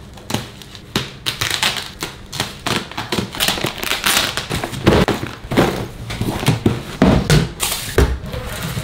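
Parcels being unwrapped by hand: packing tape ripping and plastic wrapping crackling, with irregular taps and knocks on cardboard.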